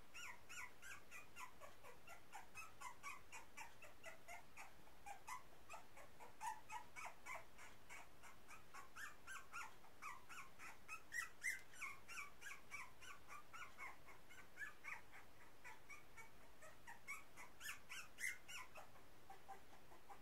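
A young puppy crying in a long run of short, high-pitched squeaks, several a second, loudest about halfway through and again near the end.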